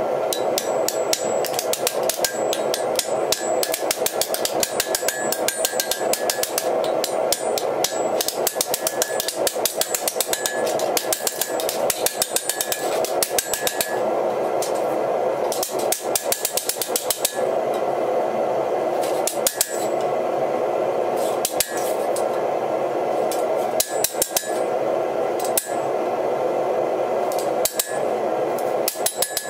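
Hand hammer striking a hot flat iron strap on an anvil, blows coming several a second in runs with short pauses, as the strap is bent on edge. A steady rushing noise runs underneath.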